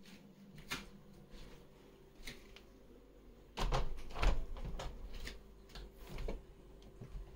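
Cats pouncing at a laser dot, their paws and bodies knocking against a board wall and window sill. There are scattered knocks, a loud cluster of thumps about four seconds in, and another bump near six seconds.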